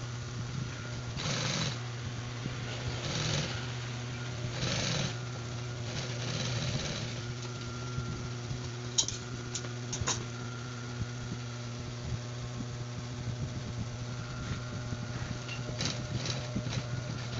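Industrial sewing machine stitching binding tape onto quilted vinyl: its motor hums steadily, with short runs of stitching in the first half and a few sharp clicks later on.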